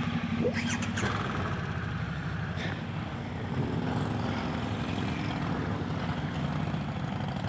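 Motorcycle engine idling steadily, with a second engine note joining about three and a half seconds in. A few light clicks around one and three seconds in.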